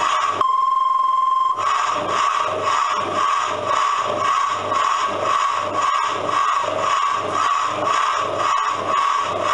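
Steam-locomotive sound effects from a coin-operated kiddie ride's speaker: a one-second whistle blast just after the start, then a fast, even chuffing rhythm as the ride runs.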